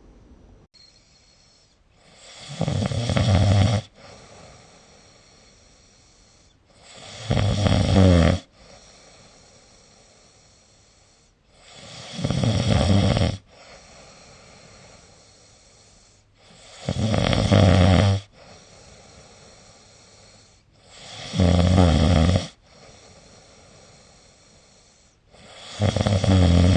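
A sleeping person snoring, with six loud snores about every four and a half seconds. Each swells for a second or so and then stops sharply, with quieter breathing between.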